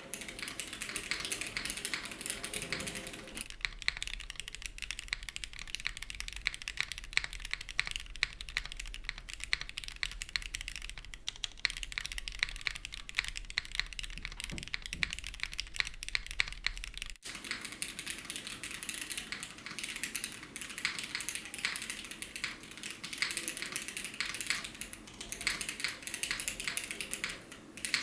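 Continuous typing on a custom mechanical keyboard with retooled Cherry MX Black linear switches, a polycarbonate plate and GMK keycaps: a dense, steady stream of clacking keystrokes. The sound changes about three seconds in, turning thinner with a low hum beneath, and changes back about seventeen seconds in, as the recording switches between a camera microphone and a studio microphone.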